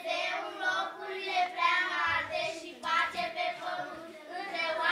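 A small group of young girls singing together, holding long notes.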